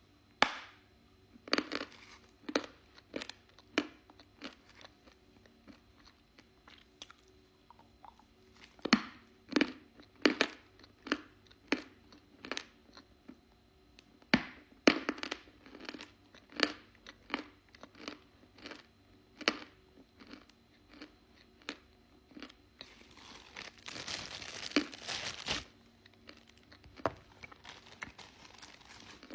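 Hard edible chalk being bitten and crunched close to the microphone: sharp separate crunches about once a second with quieter chewing between. About 23 seconds in, a longer scratchy crunching noise lasts some three seconds.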